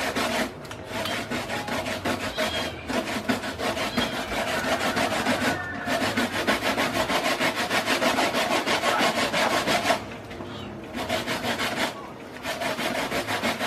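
A spoon scraping raw fish flesh off the skin on a plastic cutting board: quick, repeated rasping strokes with a few short pauses.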